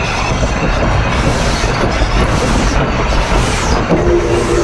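Driving wheels of D&RGW 491, a narrow-gauge steam locomotive, rolling on the rail on straight track: a steady rumble with clatter and several bursts of hiss. The flanges ride evenly here rather than rubbing. A steady tone comes in near the end.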